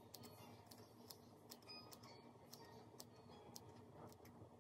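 Faint, irregular clicks of small scissors snipping through a wig cap, about two a second.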